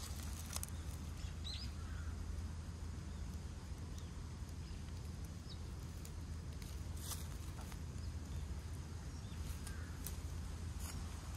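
Outdoor ambience: a low steady rumble with scattered crackles of dry leaves as a cat steps about, and a few faint high bird chirps.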